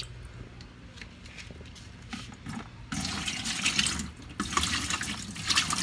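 Water running and splashing while the tub of a mini washing machine is rinsed out. It is faint at first and gets much louder about three seconds in, with a brief break shortly after.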